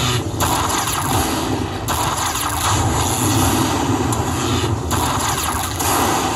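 Lightning Link slot machine playing its win count-up sound while the bonus total tallies, over the dense din of a casino floor.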